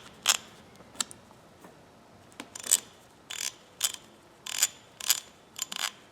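Freshly greased Penens half-inch drive ratchet worked back and forth, its pawl clicking over the gear in short bursts every half second to a second, with a pause after the first second. The clicking is muffled by the grease.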